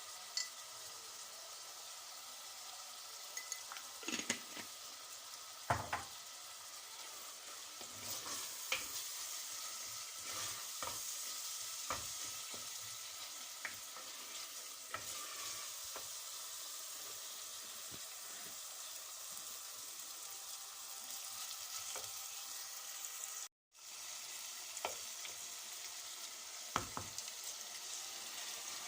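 Food sizzling as it fries in a pan and is stirred, with scattered knocks and scrapes of the utensil against the pan. The sound drops out for a moment about three-quarters of the way through.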